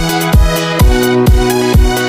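Background electronic dance music: a steady kick drum a little over two beats a second under held synth chords.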